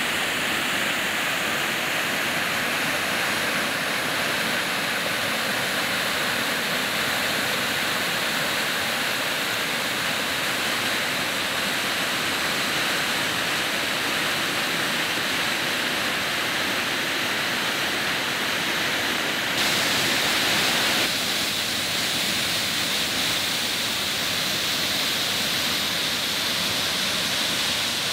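White water of the Sol Duc River rushing over rocks and pouring down the falls: a steady, hissing rush of water. About twenty seconds in it turns briefly louder and brighter for a second or so, then settles back.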